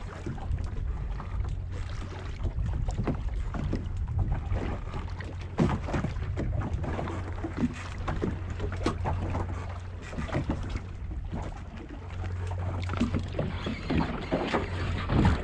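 Wind buffeting the microphone and water slapping against the hull of an open pirogue in a light swell, with scattered irregular knocks.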